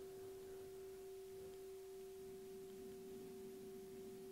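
Faint steady pure tone with a weaker tone an octave above it, held at one pitch without swelling or fading.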